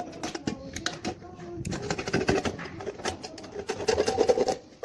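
Utility knife blade cutting and scraping through the thin metal wall of an empty aerosol brake-cleaner can, a run of rapid small clicks and scrapes. A muffled voice-like sound rises behind it near the end.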